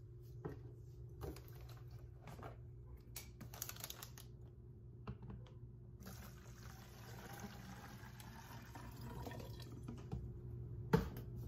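Scattered clicks of plastic bottles being handled, then from about six seconds in a steady pour of bottled water into a large plastic water jug, getting slightly louder as it goes. A sharp click near the end is the loudest sound.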